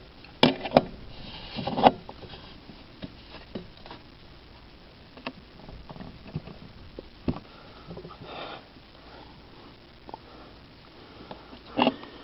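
Tightening a pool ladder's mounting bolt by hand with a wrench: scattered metallic clicks, knocks and scrapes of the tool on the bolt and ladder, with several sharper knocks in the first two seconds and again near the end.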